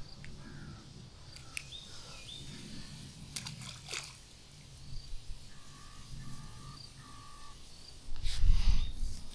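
Outdoor waterside ambience with small birds chirping, including a short call repeated three times a little past the middle. A couple of sharp clicks come about three to four seconds in, and a brief low rumble comes near the end.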